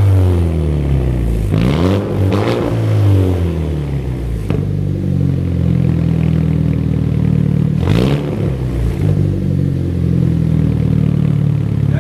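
Hyundai Genesis Coupe engine breathing through a newly fitted Tomei titanium exhaust, idling and blipped: two quick revs about two seconds in and another about eight seconds in, each rising and falling back to idle.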